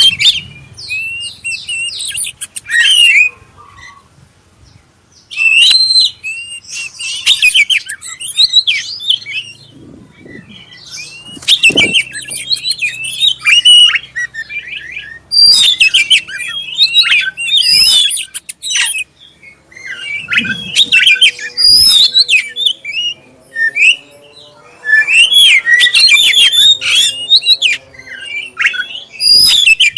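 Black-breasted kacer (Oriental magpie-robin) singing a loud, clear song of varied whistles, trills and chattering notes, in bursts of a few seconds separated by short pauses.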